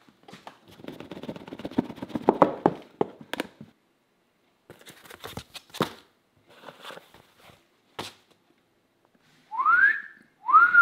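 Cardboard reel box and packaging handled and opened on a countertop: rustling, scraping and clicks, loudest in the first few seconds. Near the end a person whistles a wolf whistle: one note gliding up, then one that rises and falls.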